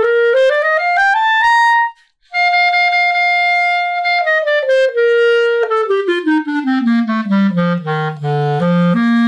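Clarinet played in a demonstration run: a quick scale up to a high note, a brief pause, a held note in the upper register, then a scale back down to the instrument's lowest notes and a leap up to a held low note near the end. It is playing with the A-key adjustment screw backed out so the A-flat key closes fully and no longer leaks.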